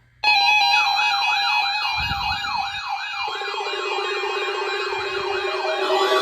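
Weather radio alert alarms going off together: several steady electronic tones with a siren-like yelp sweeping up and down about four times a second. A lower tone joins about three seconds in. This alarm sequence leads into the NOAA Weather Radio weekly test.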